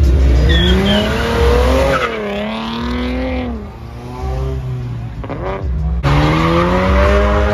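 A sports car engine revving hard, its pitch rising and falling several times as the car slides around on wet pavement. It breaks off suddenly about six seconds in and starts a new rising rev. A repeating low bass beat runs underneath.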